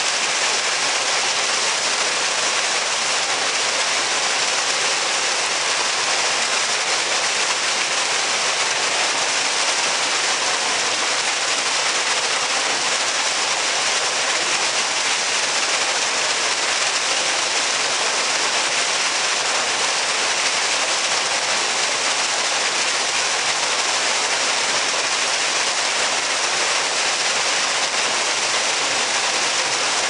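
A man-made waterfall's single column of water falling into a shallow pool: a steady splashing hiss that holds even throughout.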